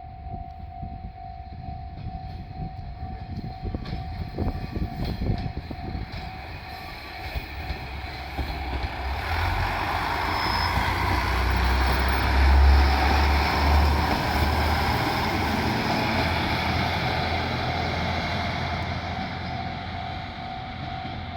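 Japanese level-crossing warning bell ringing steadily and rapidly throughout, as a JR Shikoku 1200 series diesel railcar passes. The train's engine rumble and wheel noise build up about nine seconds in, are loudest a few seconds later, then ease off.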